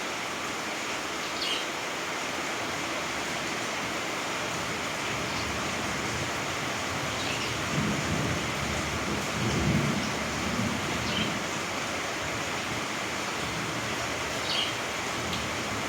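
A steady rushing hiss, with short high bird chirps about four times and a low rumble swelling about eight to ten seconds in.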